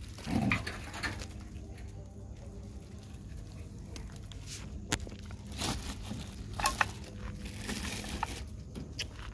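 Dogs and puppies eating and licking up food from gravelly ground, their paws pattering and scuffing on the grit, with scattered sharp clicks and a short low sound about half a second in.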